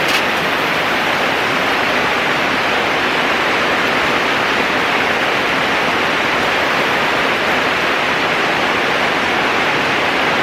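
Heavy rain pouring down, a steady, unbroken hiss.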